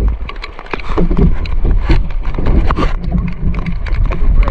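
Hands working inside a woven bamboo fish trap to take out the catch, giving irregular knocks, rattles and scrapes against the mesh, over a steady low rumble.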